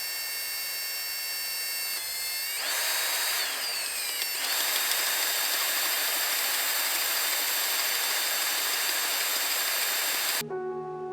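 High-speed electric power tool running with a high whine, then cutting into a seized steel stud on a turbo manifold with a harsher grinding sound. It cuts off suddenly near the end.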